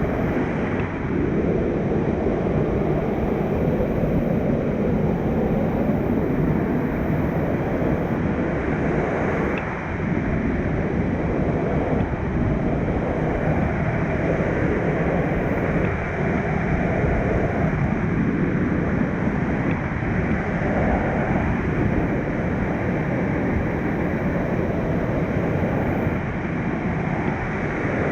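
Mountain stream rushing over rocks, a loud steady water noise with no breaks.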